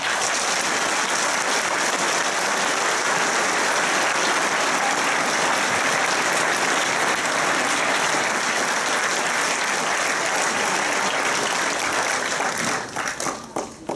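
A large audience applauding steadily, loud and sustained, then the clapping thins and dies away near the end.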